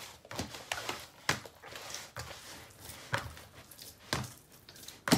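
Bread dough being kneaded by hand in a plastic basin: irregular squishing slaps and soft thuds, about one or two a second, as the soft, still slightly oily dough is pressed and turned.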